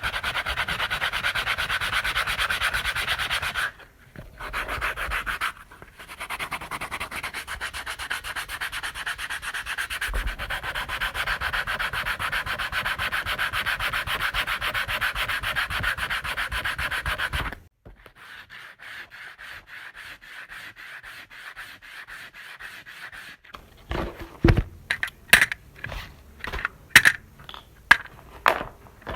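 Continuous abrasive sanding, a fast rasping rub, with two short breaks in the first six seconds, stopping suddenly about 17 seconds in. After a quieter crackly stretch, a series of sharp, irregular clicks and knocks fills the last five seconds.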